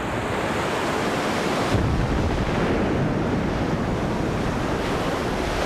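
Ocean surf breaking and churning into white water against rock, a steady rush of waves that grows fuller about two seconds in.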